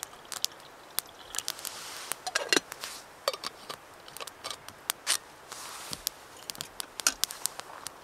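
Small wood fire in a Bushbox LF twig stove crackling with irregular sharp pops, over a faint steady hiss. A few louder knocks and scrapes stand out about two and a half seconds in and about five seconds in.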